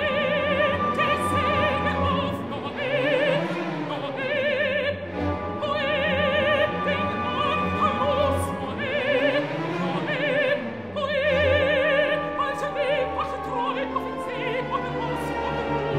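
Operatic soprano singing in sustained phrases with wide vibrato over a full orchestra, whose lower parts sweep up and down in surging runs.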